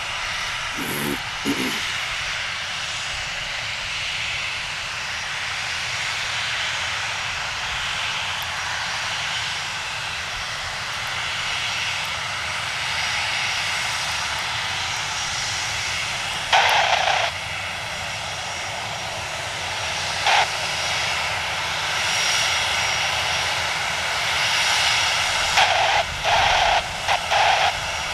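Boeing 737's turbofan jet engines running at low taxi power: a steady rushing hum with a thin high whine on top. A few short loud bursts cut in, one about halfway and several near the end.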